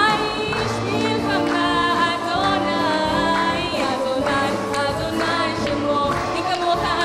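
Congregational worship music: several voices singing a melody with vibrato over instrumental accompaniment.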